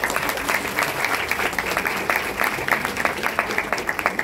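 An audience applauding, many hands clapping.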